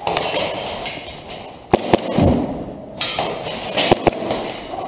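Airsoft pistol shots: two quick double-taps of sharp cracks, about two seconds apart.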